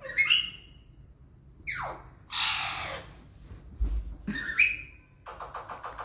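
Pet parakeet squawking and chirping. There is a short call at the start, a falling call that turns into a harsh screech about two seconds in, a few short chirps, and a fast chattering run near the end.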